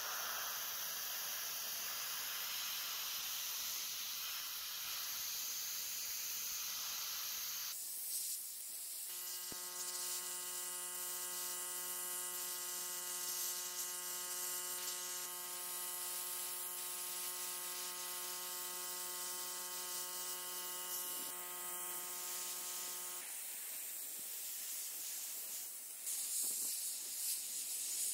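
Spray paint hissing steadily as it is sprayed onto a model car body. Through the middle stretch a steady buzzing hum with many overtones sounds along with the hiss.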